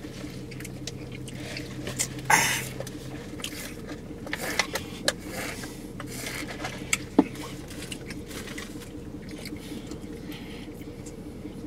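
Eating and drinking noises inside a car: scattered rustles, scrapes and clicks of food wrappers and cups, chewing and sipping through a straw, with one louder rushing noise about two seconds in. A faint steady low hum runs underneath.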